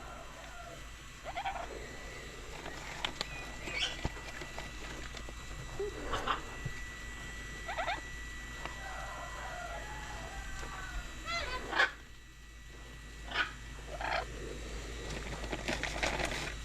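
Birds calling: short chirps and squawks at irregular intervals, with a louder call about twelve seconds in.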